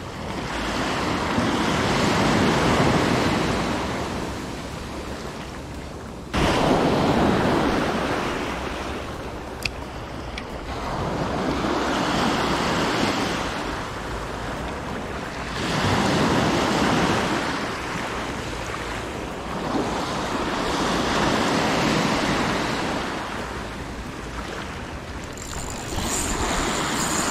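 Small waves breaking and washing up a sandy shore, the surf swelling and fading every four to five seconds. A thin high whine comes in near the end.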